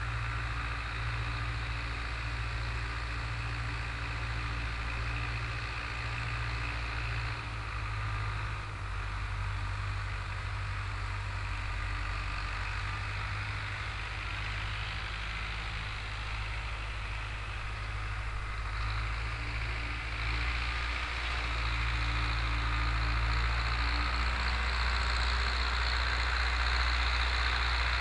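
Long 900 tractor's four-cylinder diesel engine running steadily while pulling a disk harrow through a field, getting a little louder about twenty seconds in.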